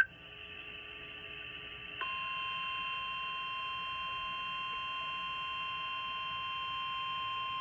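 Emergency alert attention tone: after a short quieter gap, a single steady tone of about 1 kHz comes on about two seconds in and holds without a break. It is the alert signal that precedes the spoken tornado warning.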